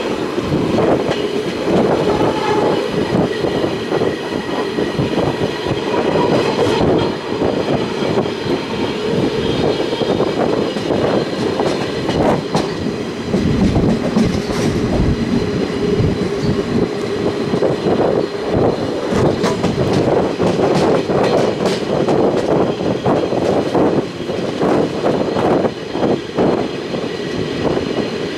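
Passenger train running at speed, heard from inside the carriage: a steady rolling rumble of wheels on rails with frequent clicks and knocks over rail joints, coming thicker in the second half.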